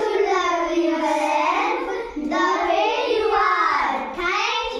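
Children singing in high young voices, holding long notes and gliding between them; the singing starts abruptly.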